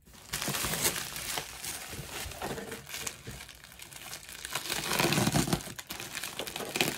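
Packaging handled and opened by hand, crinkling and rustling throughout, loudest about five seconds in.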